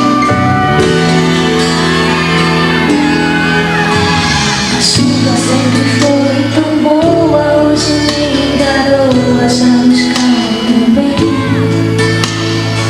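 Live pop band playing a song's instrumental passage in a large hall, held chords with cymbal strokes, and voices singing and shouting over it.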